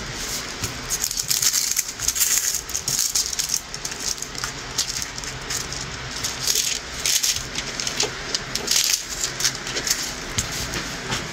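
Diamond painting canvas and its plastic cover being handled and pulled taut, giving a steady run of irregular crinkles and rustles.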